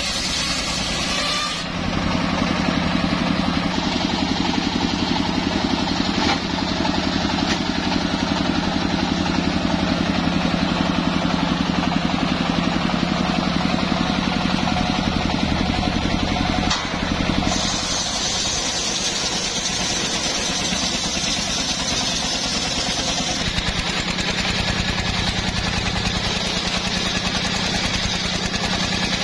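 Homemade engine-driven circular sawbench running, its large blade ripping lengthwise through a hardwood plank, with the engine's steady drone under the cutting. The sound changes abruptly twice, about two seconds in and again past the middle.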